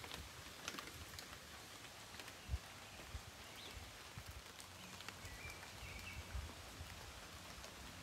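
Light rain falling, faint and steady, with scattered small drop ticks and a few soft low thumps.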